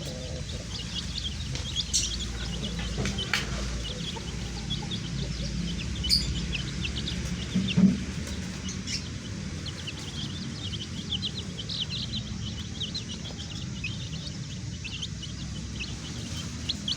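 Many baby chicks peeping, short high cheeps overlapping throughout, over a low steady hum. A few knocks, the loudest a thump about eight seconds in.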